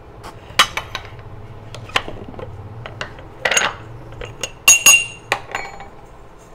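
Light taps and clinks of kitchenware against a ceramic serving plate, some ringing briefly, with a short hiss about three and a half seconds in and the loudest clinks just before five seconds in.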